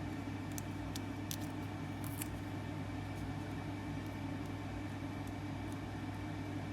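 Steady low mechanical hum, like a running fan, with a few faint clicks in the first couple of seconds.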